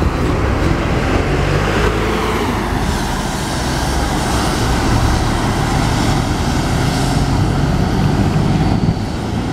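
City bus engine running loud as the bus passes close and pulls away, the engine note rising in the first couple of seconds, with a heavy low rumble; other road traffic underneath.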